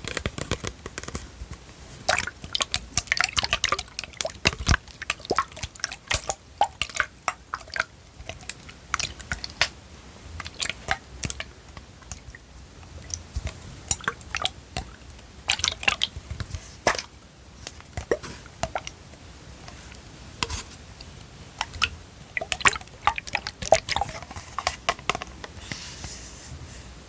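ASMR tapping and handling of an object: irregular clusters of short, light clicks and taps.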